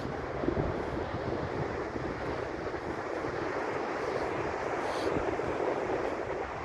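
Wind buffeting the microphone in uneven low gusts over the steady wash of ocean surf.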